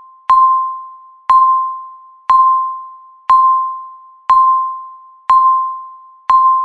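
Countdown timer's electronic beep, once a second, each beep marking one second counted down. Each is a single-pitched tone that starts sharply and fades away before the next, seven in all.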